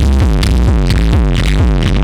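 Loud electronic dance music played through a sound system: a heavy bass line of short falling notes, about four a second, over a steady deep bass.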